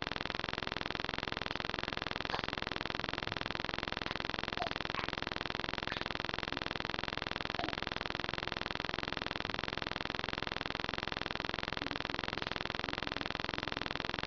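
Steady buzzing hiss of webcam microphone noise, with a few faint short chirps.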